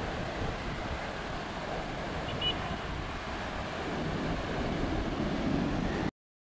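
Sea surf breaking on the shore, heard as a steady rushing noise mixed with wind blowing across the microphone; it cuts off suddenly near the end.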